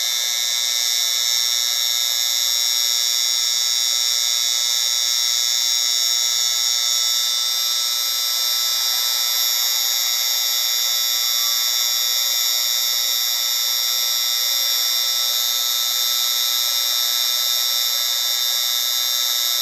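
Tinnitus-masking noise track: a steady, high-pitched hiss with no low end, overlaid with several steady whistling tones.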